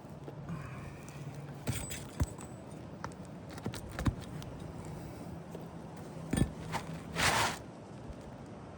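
Asphalt roof shingles being lifted and handled: scattered clicks and light knocks, with a short scraping rasp near the end.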